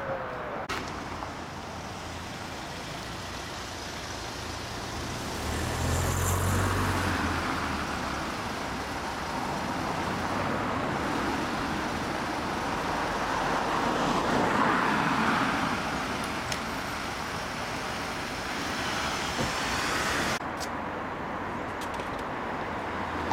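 Road traffic: cars driving past at close range over a steady traffic hum, louder as vehicles pass about six and fifteen seconds in, the first with a deep engine rumble.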